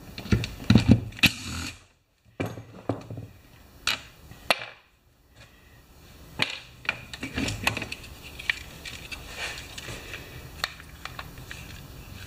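Short whirs of a cordless drill-driver backing out plastic-housing screws, then scattered clicks and rattles of plastic parts as the chainsaw's recoil starter housing is worked loose and lifted off.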